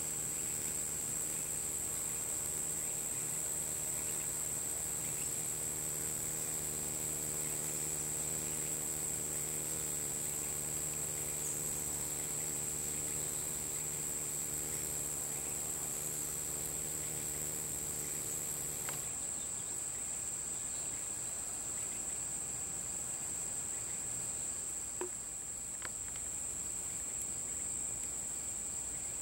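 A steady, high-pitched, continuous chorus of insects such as crickets or cicadas. Under it a low steady hum stops abruptly about two-thirds of the way through.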